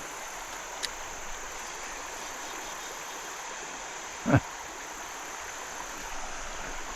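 Creek water running steadily over riffles, with one short, loud low thump about four seconds in.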